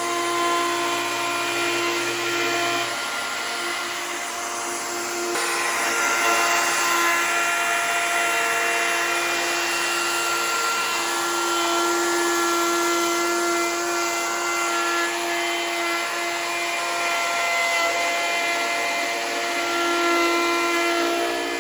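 Handheld electric woodworking power tool running steadily on a hickory tabletop, a continuous high whine whose pitch and load shift a few times as it works the wood.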